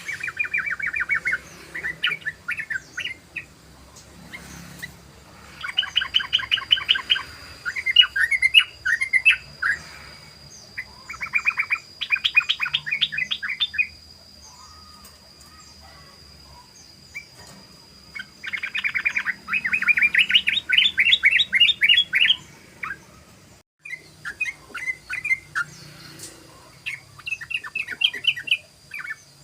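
Sooty-headed bulbul (trucukan) calling in its rapid rolling 'ropel' chatter: several bouts of fast repeated notes, each a couple of seconds long, separated by short pauses.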